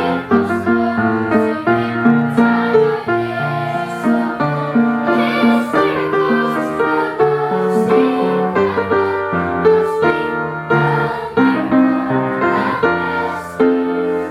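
Piano music playing: a steady run of sustained chords and melody notes.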